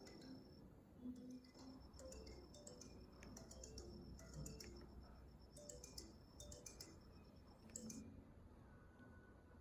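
Faint music playing through a small DFPlayer Mini MP3 speaker box, with scattered sharp clicks.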